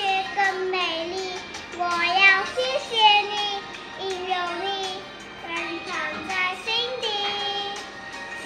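A young girl singing a Mandarin song, a continuous melody with held notes, over accompaniment music.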